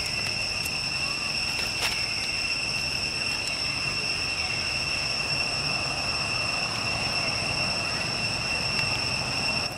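Steady, unbroken high-pitched drone of insects, over a low rumble, with a single click about two seconds in.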